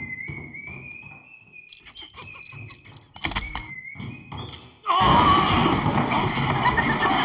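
Cartoon soundtrack: a thin wavering whistle-like tone over light regular ticks, with a heavy thud about three seconds in. Just before five seconds it gives way suddenly to a loud dense din with squealing glides in it.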